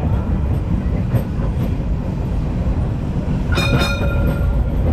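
1925 W2-class tram running along its track with a steady low rumble of wheels and running gear. About three and a half seconds in, a metallic warning gong is struck twice and rings out briefly.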